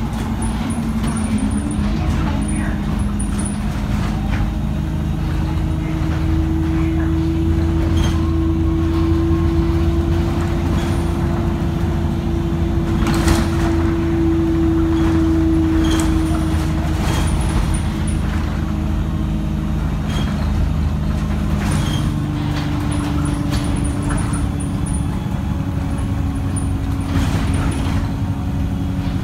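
KMB bus engine and drivetrain running under way with a steady pitched drone that rises and falls in pitch a few times as the bus changes speed. Scattered rattles and knocks come from the bus body, the loudest about thirteen seconds in.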